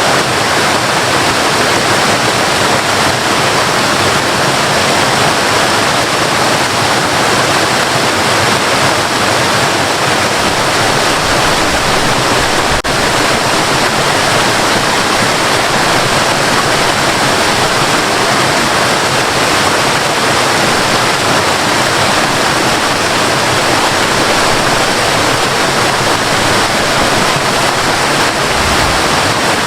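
Waterfall: water falling and crashing in a steady, loud rush.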